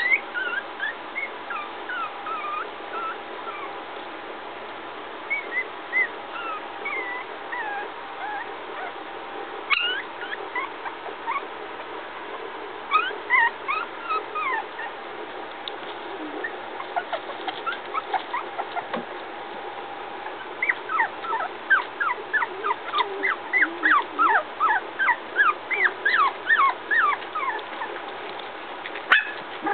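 Three-week-old puppies whimpering and squeaking in short, high, falling cries, scattered at first, then in a quick run of about two a second over the last third.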